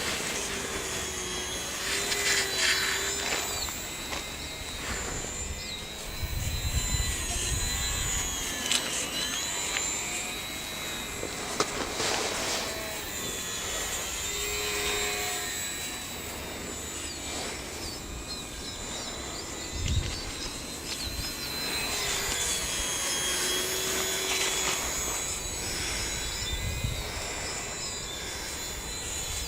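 Small electric motor and propeller of a Sport Cub S remote-control plane whining in flight, the pitch rising and falling as the throttle changes. Gusts of wind rumble on the microphone now and then.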